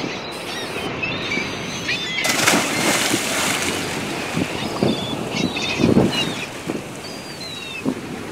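A scuba diver jumping from a boat into the water: a loud splash about two seconds in, then water sloshing and wind buffeting the microphone. Birds chirp throughout.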